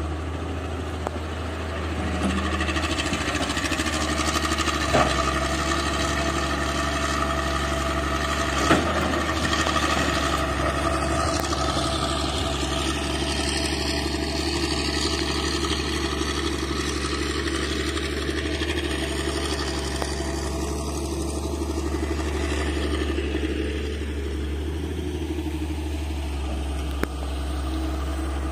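Hitachi hydraulic excavator's diesel engine running steadily while loading a dump truck, with a couple of sharp knocks about five and nine seconds in.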